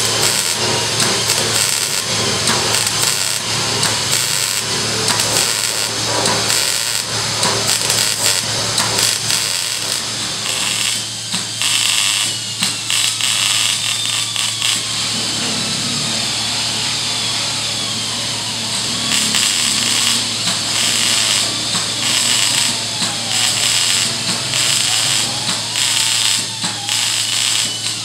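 Wire-feed (MIG) welding arc crackling as new steel plate is welded in, in runs broken by short pauses, over a steady low hum.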